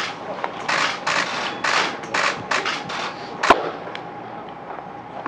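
Ballpark sounds during a baseball practice game: a string of short, irregular noisy bursts, then one sharp crack about three and a half seconds in.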